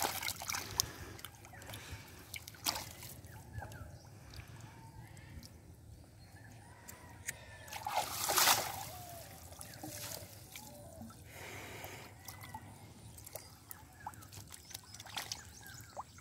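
Silver carp flapping and thrashing in shallow water crowded inside a seine net: a continual sloshing and trickling with scattered sharp splashes, the biggest splash about eight seconds in.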